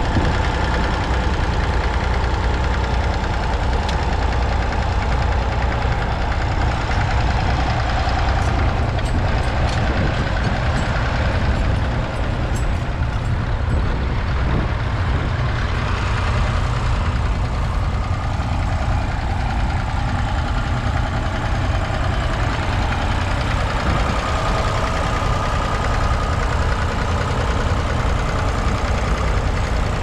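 Massey Ferguson tractor engine running steadily under load while pulling a mounted plough through stubble.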